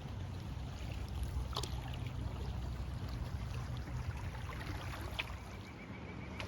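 Canoe moving on a flowing river, with water noise and wind rumbling on the microphone, and two brief sharp sounds, one about a second and a half in and one near the end.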